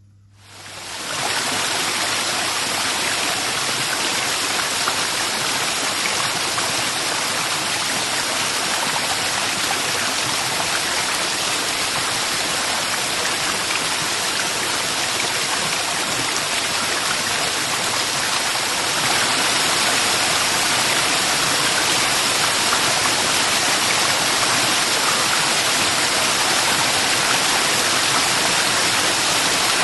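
Waterfall: a steady rush of falling water. It fades in over the first second and gets slightly louder about two-thirds of the way through.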